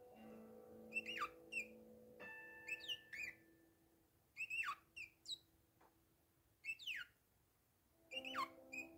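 Bourke's parakeet chirping: short, quick chirps that slide down in pitch, in groups of two or three, with a gap of about a second and a half near the middle. Soft background music with held low notes plays underneath, fading out midway and coming back near the end.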